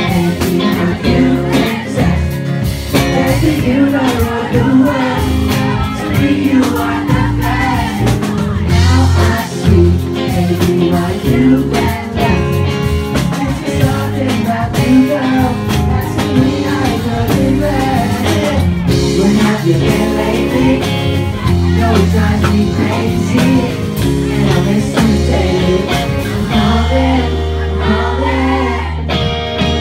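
Live band playing a pop-rock song, with a male lead vocalist singing into a microphone over a strong, steady bass.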